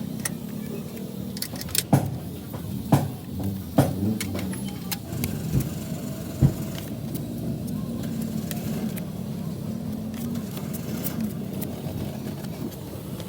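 Several sharp metallic knocks and clinks in the first half, over a steady low machine hum.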